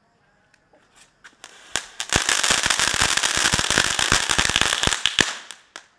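A chatar patar crackling firecracker going off. A few scattered pops come about a second in, then a dense, rapid run of cracks over a hiss lasts about three and a half seconds and stops abruptly near the end.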